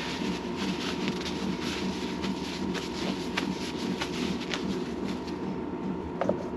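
Steady background hum with a thin high whine, and light scattered clicks of metal engine parts being handled.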